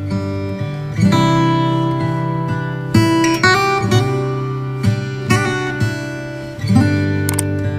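Background music of strummed acoustic guitar, chords changing about once a second.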